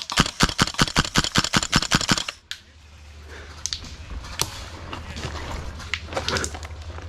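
Airsoft gun firing a rapid string of shots, about eight a second, stopping abruptly a little over two seconds in, followed by a few scattered single shots.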